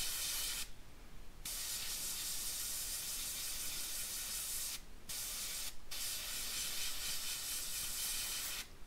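Iwata HP-C gravity-feed airbrush hissing steadily as it sprays mostly air with a little thin blue paint for detail work, the compressor turned down to low pressure. The air cuts off briefly about a second in, twice more around five and six seconds, and again near the end as the trigger is released.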